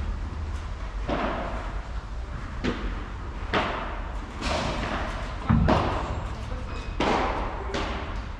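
Padel rally: a run of sharp pops of the ball off rackets and court, about one a second, each trailing off in the hall. A heavier thud about five and a half seconds in is the loudest hit.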